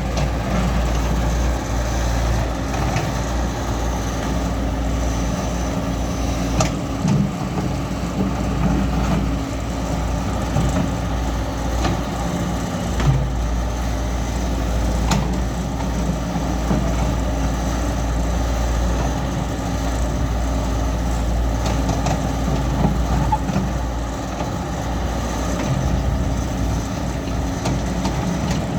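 Caterpillar excavator's diesel engine running steadily with a deep rumble, with a few sharp knocks from the machine along the way.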